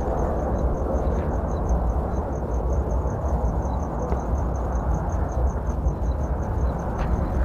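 Steady low rumble of handling and wind noise from a handheld camera on the move, with a high chirp repeating evenly about five times a second in the background.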